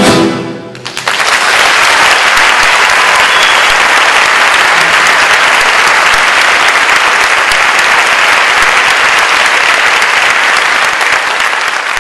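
The last chord of a classical guitar ensemble rings and fades away; about a second in, an audience breaks into loud, steady applause.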